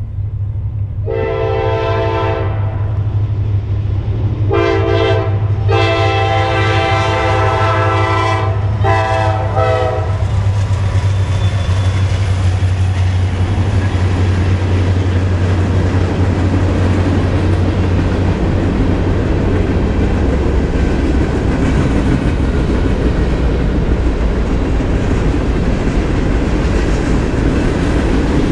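CSX freight train passing: the diesel locomotives' air horn sounds four blasts in the first ten seconds over the low drone of the engines, then the steady rumble and rattle of freight cars rolling by on the rails.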